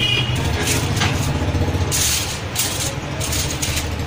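Aluminium foil crinkling and rustling in short bursts as a sheet is pulled out and handled, over a steady low hum.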